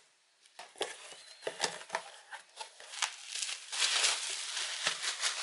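Packing tape on a cardboard box being slit with a box cutter and pulled open, a few sharp scratching rips in the first two seconds. Then a dense crinkling rustle of bubble wrap as a book is unwrapped.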